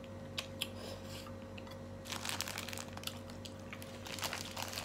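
Small clear plastic bag crinkling and rustling as it is opened and handled, starting about two seconds in, after a couple of faint clicks.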